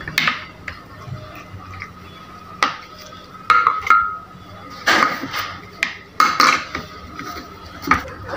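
Clinks and knocks of a glass blender jar being handled and filled with peeled orange segments: several sharp knocks at uneven intervals, some ringing briefly.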